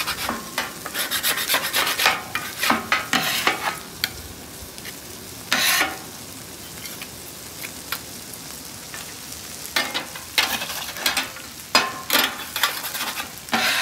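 Metal bench scraper scraping food residue off a steel spatula blade and across the griddle's steel cooktop in short scraping strokes, in runs at the start and again near the end with a quieter gap in the middle. A low sizzle from food frying on the hot griddle runs underneath.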